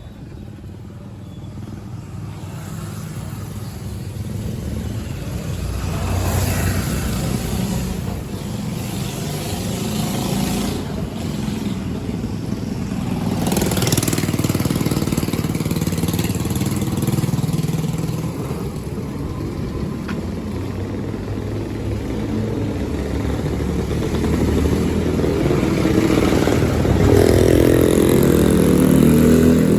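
Street traffic: motor vehicle engines running and passing close by, with one engine getting louder near the end.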